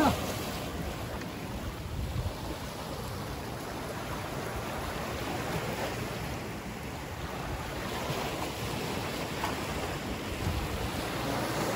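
Steady wash of sea surf against shoreline rocks, rising and falling slightly, with wind on the microphone.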